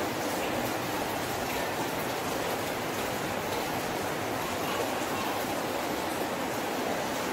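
A steady rushing noise, even and unbroken, with no distinct events.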